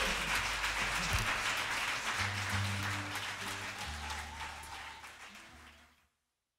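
Audience applauding at the end of a live acoustic song. The clapping fades steadily and stops about six seconds in. A few low held instrument notes sound beneath it in the second half.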